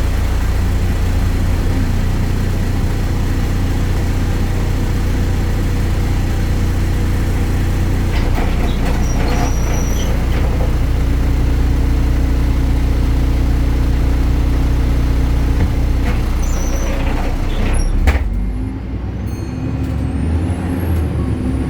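BredaMenarini Avancity Plus city bus with a Deutz Euro 5 diesel and ZF gearbox, heard on board: the engine runs with a steady low drone. About eighteen seconds in there is a sharp click and the engine note drops, then a high whine rises near the end.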